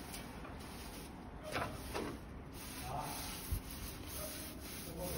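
Hand-held scraper rubbing along the fluted grinding roll of a Bühler MDDP roller mill, in repeated scraping strokes that loosen caked residue from the flutes.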